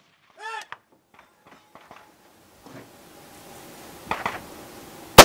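A single close rifle shot near the end, preceded about a second earlier by a couple of softer knocks; before that, only faint clicks.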